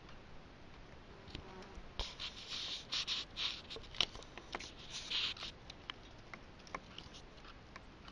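Scattered sharp taps with a cluster of short, scratchy rustles between about two and five seconds in: a woodpecker pecking and picking at tree bark.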